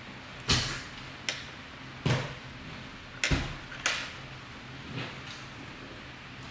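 Sharp plastic clacks and knocks from a 7u SA-profile spacebar keycap being handled and turned over in the hands, about six of them at uneven intervals, then a softer knock about five seconds in as the keycap is set down on a wooden desk.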